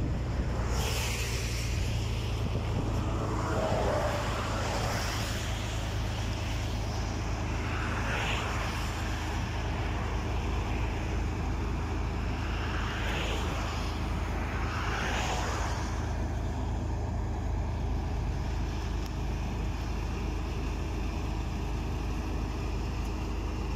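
Asphalt paver's diesel engine running with a steady low hum as it lays fresh asphalt, with a few brief swells of hissing noise in the first sixteen seconds.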